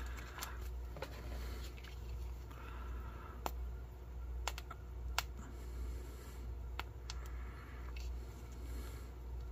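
A foil ration pouch crinkling and crackling in the hands as chocolate peanut spread is squeezed out of it, with scattered sharp clicks over a low steady hum.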